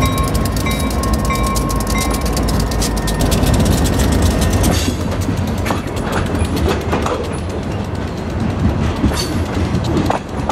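Diesel freight locomotives rumbling slowly past with a bell ringing in a steady repeating beat, which stops about three seconds in. Then a boxcar and covered hoppers roll by, wheels clicking and clanking with a few short squeals.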